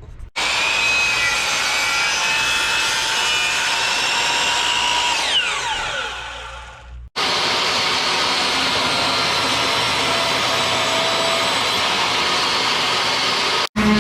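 Power saw running as it cuts an end-grain wooden cutting board into coasters. About five seconds in its whine falls away as the blade spins down, then the saw is heard running steadily again.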